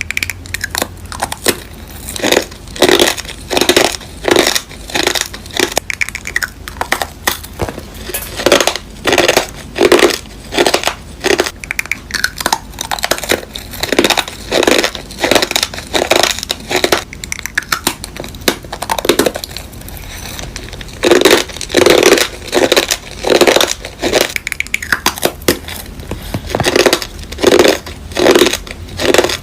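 Crunchy candy being chewed close to the microphone: a long run of loud crunches, about one or two a second, with a few short pauses.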